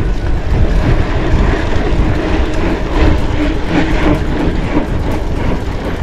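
Wind buffeting the microphone over a heavy low rumble while a mountain bike is ridden over rough ground, with a quick clattering rattle that grows stronger from about three to five seconds in.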